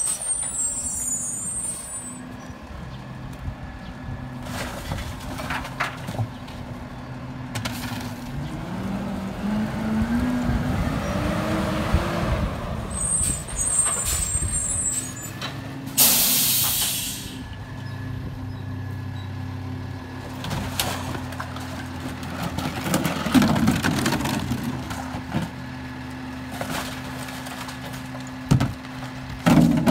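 Freightliner M2106 garbage truck's diesel engine rising in pitch as it pulls ahead, then a sharp hiss of air from the air brakes about halfway through as it stops. The engine then idles steadily, with knocks near the end as recycling bins are tipped into the rear hopper.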